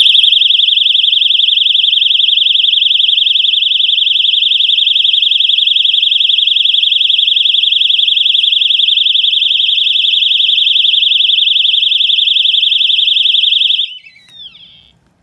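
Wheelock AES-EL1-WS-24 fire alarm horn strobe sounding its warble tone. It gives a loud, high-pitched, rapidly warbling tone for about 14 seconds, then cuts off with a brief falling glide as it shuts down.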